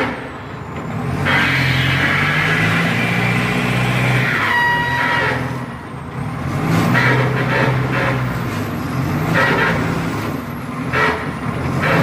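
Heavy construction machine's diesel engine running steadily, with a short high beep about four and a half seconds in.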